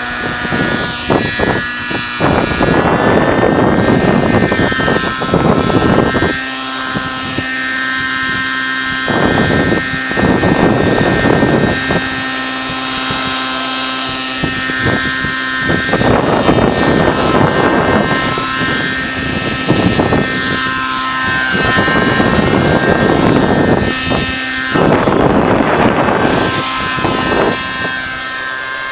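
Raptor SE 50 radio-controlled helicopter's two-stroke nitro glow engine running at a steady high pitch with its rotor blades spinning, the pitch stepping up slightly a few seconds in as it lifts off and flies. Bursts of rushing noise come and go every few seconds over the engine sound.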